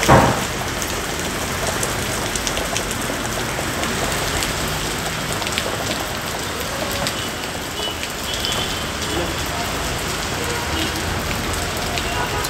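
Heavy rain falling steadily on a wet street and puddles, an even hiss.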